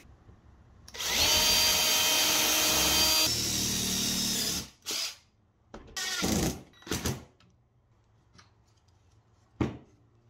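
Cordless drill running steadily for a few seconds as it bores a pilot hole into pine, its sound turning lower and rougher about halfway as the bit bites into the wood. This is followed by three short bursts of the drill and a single sharp knock near the end.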